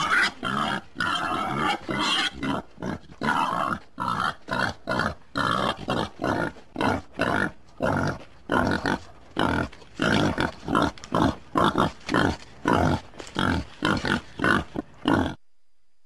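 Wild boar grunting in a fast, steady series of short grunts, about two a second, stopping shortly before the end.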